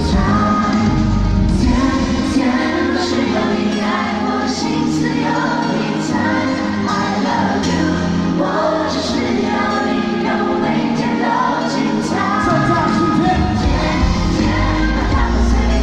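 Pop song performed live at a concert: singing over full band backing.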